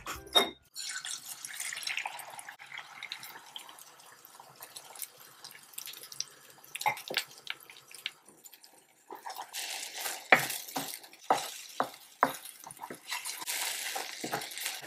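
A fork clinks once against a bowl, then beaten eggs sizzle in a hot non-stick pan with a steady hiss. From about nine seconds in, a wooden spatula scrapes and pushes the setting eggs around the pan in quick repeated strokes while they go on sizzling.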